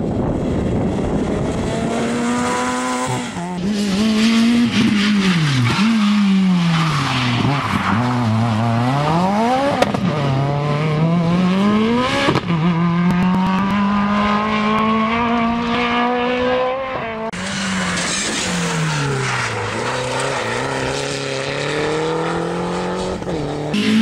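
Rally car engines revving hard as the cars pass one after another, the pitch climbing and falling over and over through gear changes and lifts for corners.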